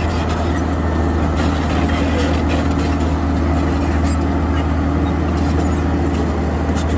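Caterpillar D8R crawler bulldozer's diesel engine running steadily under load as the dozer pushes earth with its blade, with a deep, even hum.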